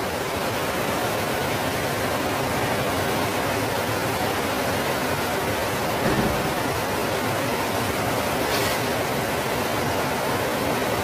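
Flash floodwater rushing in a muddy torrent down a street: a steady, dense rush of water.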